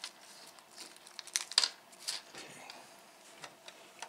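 A small plastic packet of screws crinkling as it is torn open and handled, in a few short crackles during the first half, the loudest about one and a half seconds in. After that there is only quieter handling.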